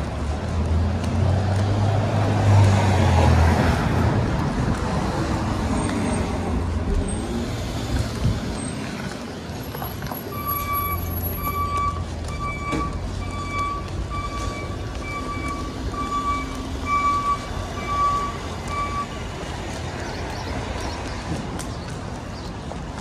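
City street traffic: a vehicle passes with a low rumble in the first few seconds over steady road noise. From about halfway through, an electronic beep repeats about one and a half times a second for some nine seconds, then stops.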